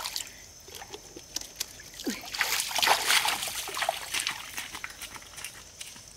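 Water splashing and sloshing as bare feet wade through a shallow, stony stream pool, loudest between about two and four seconds in, with small clicks of stones underfoot.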